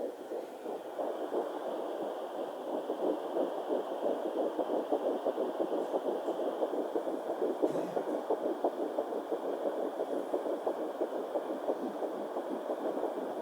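Handheld fetal Doppler's speaker giving a steady whooshing static with a rapid flutter, under a faint steady high hum, as the probe is held on the lower belly searching for an early pregnancy heartbeat.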